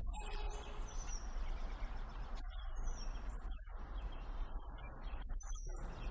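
Steady low rumble and wash of a cruise boat under way, its engine running under the noise of water and wind, with a few short high chirps over it.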